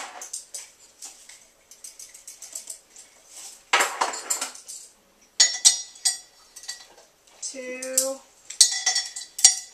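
A metal tablespoon clinking and tapping against a seasoning container in several quick clusters while dry Creole seasoning is measured out, with a short rustle of seasoning about four seconds in.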